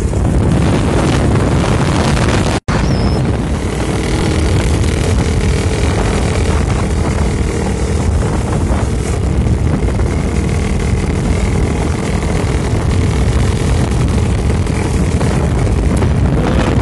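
Motorcycle engine running steadily under way, with heavy wind rumble on the microphone. The sound drops out for an instant about two and a half seconds in.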